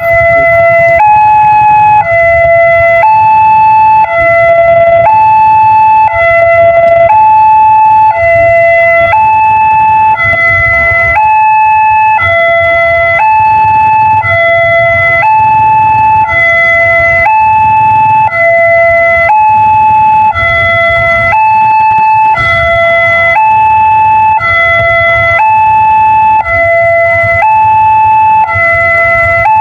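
Railway level-crossing warning siren sounding a two-tone hi-lo alarm, switching between a higher and a lower note about once a second, the signal that a train is approaching and the crossing is closed. A low steady rumble runs underneath.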